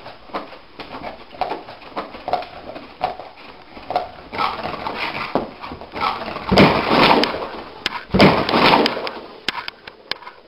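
A sleeping dog's paws thumping on carpet in a steady rhythm of soft knocks, about two a second, as it runs in its sleep. Then come louder bursts of scrabbling as it jumps up and dashes off, loudest twice in the second half.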